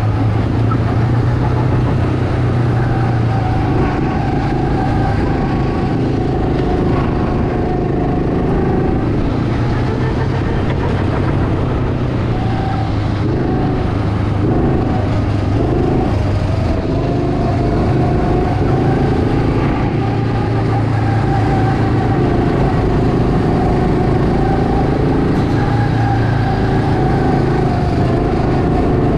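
Go-kart engine running at speed close by, its pitch slowly rising and falling as the kart speeds up and eases off through the turns.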